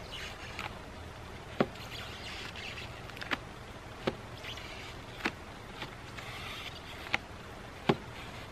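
Paper plates being handled and pulled apart in a stack: about six sharp clicks and snaps, scattered among soft paper rustling.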